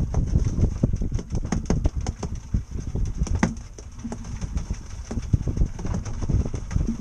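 Wind rumbling on the microphone aboard a small open boat, with irregular knocks and clicks from handling and gear.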